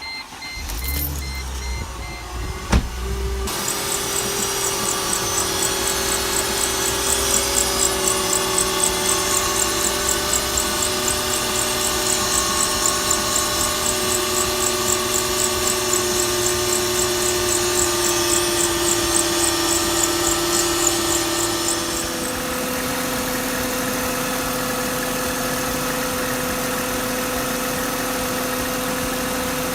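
Mercedes-Benz C230's M272 V6 engine starting up and idling, running on a newly replaced belt tensioner, guide pulleys and fan belt. A rapid high ticking rides over the idle, and the idle note sinks slowly. About 22 seconds in, the note shifts and settles to a steadier hum.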